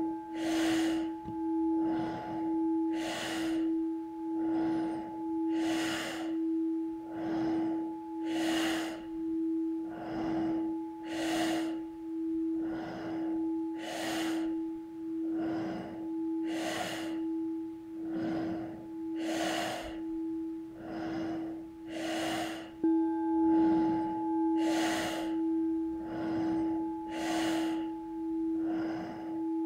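Fast, forceful breathing in and out through the nose, about three breaths every two seconds, over the steady ringing hum of a singing bowl. The bowl is struck again about 23 seconds in.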